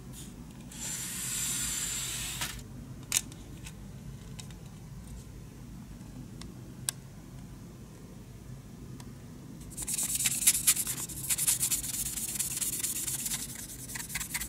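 Sanding sponge scrubbed rapidly back and forth on the plastic body of a model car kit in the last few seconds, a dense scratchy rasping. Before it, a short rustle and a couple of light clicks as the plastic kit parts are handled.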